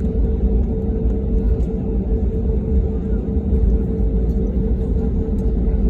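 Cabin noise inside an Airbus A320neo on the ground before takeoff: a steady low rumble with a constant hum, the engines running at low power.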